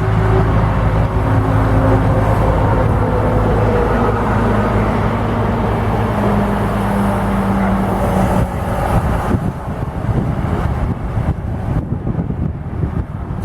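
Diesel locomotive engine running loud and steady with slowly falling tones, its engine note dropping away about eight and a half seconds in. A rolling rumble with scattered clicks of train wheels on the rails follows.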